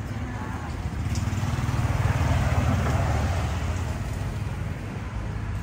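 A motor vehicle passing in street traffic: a low engine rumble with tyre noise that swells to its loudest about halfway through, then fades.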